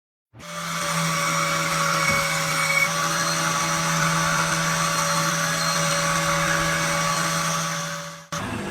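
Electric power tool motor running steadily at constant speed with a steady hum and a high hiss. It starts abruptly just after the beginning and cuts off suddenly near the end.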